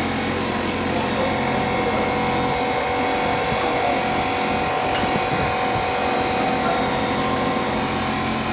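Diesel engine of a JCB telehandler running steadily while it moves with a crated load raised on its boom.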